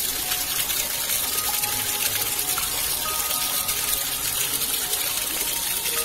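Flowing water gushing and splashing in a steady, unbroken rush.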